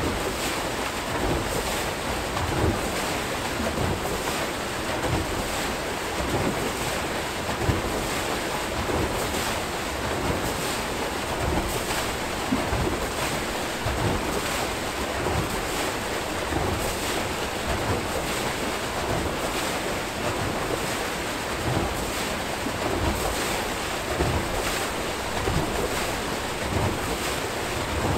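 Archimedes screw hydroelectric turbine turning in a river, water rushing and churning out at its outfall, with a regular splash repeating as it turns.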